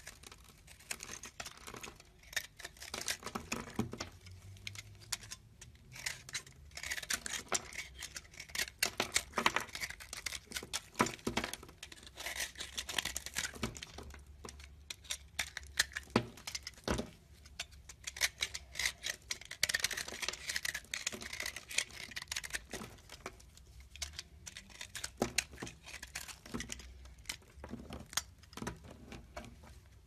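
Knife blade carving into a dry, crumbly bar of soap: a dense run of crackly scraping and small snaps as flakes break away.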